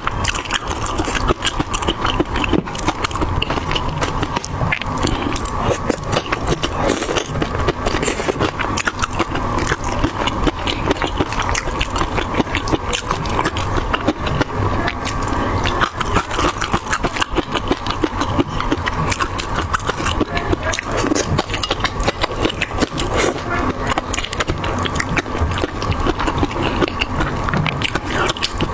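Close-miked eating sounds of shrimp in chili-garlic sauce: wet chewing and lip smacking, a dense run of small clicks and crackles.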